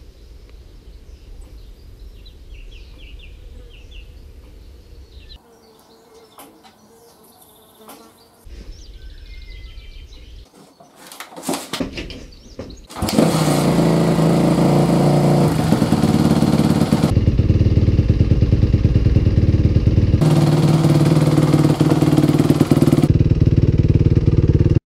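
Suzuki RM-Z 250 single-cylinder four-stroke dirt bike engine starting about halfway through, after a few sharp knocks, then running loudly with its note changing every few seconds as it is revved.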